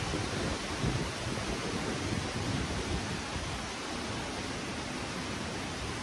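Strong wind rushing through the trees as a steady hiss, with low gusts buffeting the microphone in the first second or so before it settles to a steadier rush.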